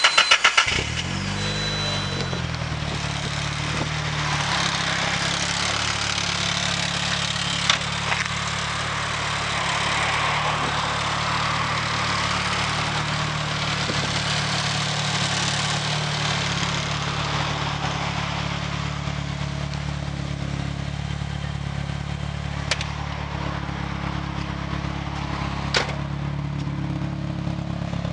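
Nissan Silvia S14's turbocharged SR20DET four-cylinder catching from the starter, flaring briefly and settling within about two seconds into a steady idle through a one-off cannonball muffler. A few short clicks stand out over the idle.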